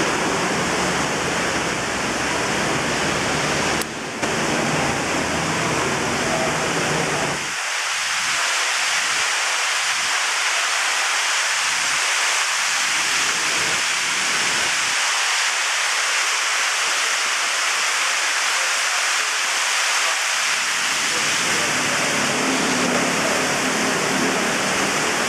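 A steady, loud rushing noise with no clear pitch, with a deeper rumble under it that drops away about a third of the way in and returns near the end.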